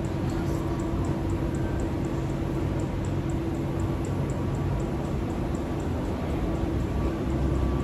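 Steady mechanical hum with a few constant tones under it, holding level without rising or falling.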